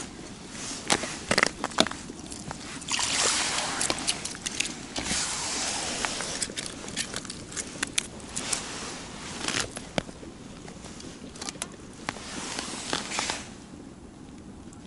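A freshly caught fish being handled on the ice: a run of sharp slaps and taps over rustling of jacket sleeves and gloves, busiest from about three to five seconds in. It quiets down about a second before the end.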